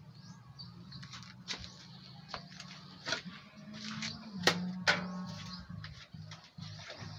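Steel shovel handled on a concrete slab beside a pile of sand-cement mix: a few short scrapes and clanks, the loudest two close together about four and a half seconds in.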